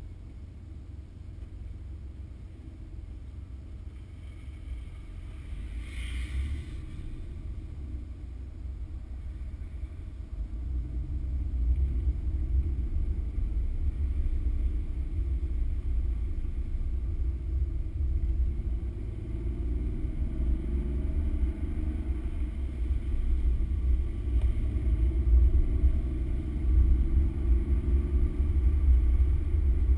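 Car engine and road rumble heard from inside the cabin. It is steady at first, then grows louder from about ten seconds in as the car speeds up, with the engine note rising and falling.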